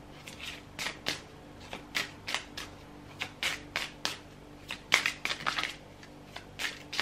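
A deck of tarot cards being shuffled by hand: a run of short, quick card swishes and slaps, several a second, loudest about five seconds in.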